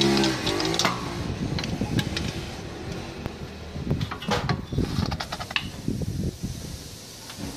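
Irregular clicks and knocks of hands and tools handling a car's front driveshaft, brake disc and hub.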